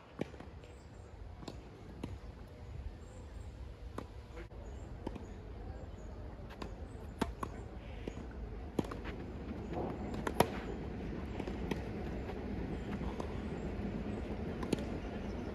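Tennis balls struck by racquets and bouncing on the court during a rally: sharp, irregular pops every second or two, the loudest about ten and a half seconds in, over a steady low background rumble.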